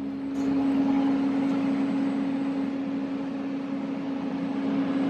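Steady machine hum with one strong low tone from the powered-up CR Onsrud CNC router's electrical cabinet equipment, with a faint click about half a second in.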